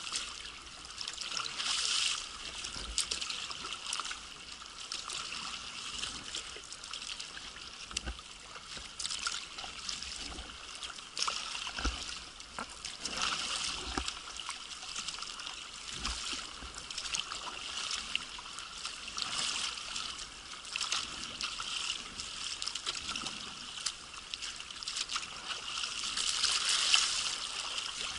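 Water trickling and splashing with small drips and clicks, from a sea kayak paddle dipping into the water and dripping off the blade.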